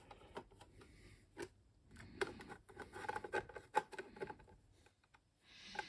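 Faint light clicks and scraping of a screwdriver working at a small Phillips-head screw. A few scattered clicks at first, then a quick run of ticks and scrapes in the middle.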